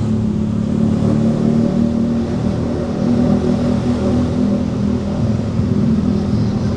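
A car's engine hum and road noise, steady and loud, from a car driving in traffic.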